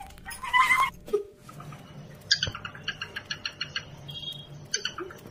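Pet parrot calling: one short harsh squawk, then a fast chattering run of short repeated notes, about five or six a second, lasting a couple of seconds.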